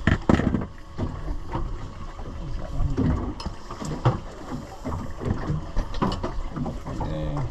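Handling and motion noise on a small fishing boat at sea: wind and water noise with irregular knocks and thumps, the loudest just at the start.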